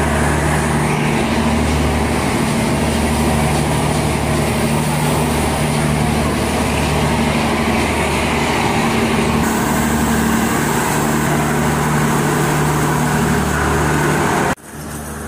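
RoRo car ferry's engines and machinery running with a steady, loud low drone and a constant pitched hum. It cuts off abruptly near the end, giving way to quieter outdoor background noise.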